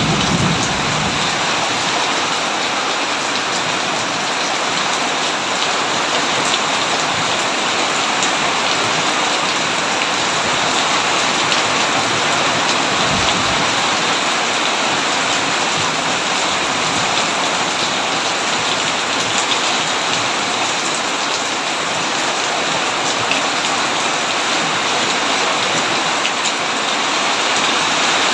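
Heavy rain falling steadily on a tin roof, a dense even hiss, with a brief low rumble near the start and again about 13 seconds in.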